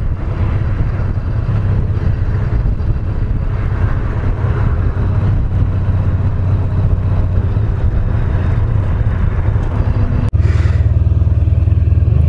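Honda VFR1200X's V4 engine running as the motorcycle rides through traffic. About ten seconds in, a short dropout, then the engine sounds louder and steadier.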